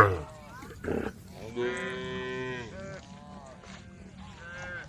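Several cows mooing. A loud call falls away at the start, a longer moo comes about one and a half seconds in, and fainter moos follow near the end.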